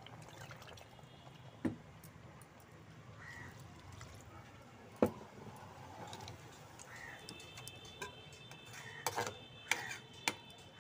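Water poured into an aluminium pressure cooker of rice and jackfruit and stirred with a metal spatula. There are sharp clinks of the spatula against the pot, once about two seconds in, once about five seconds in, and several close together near the end.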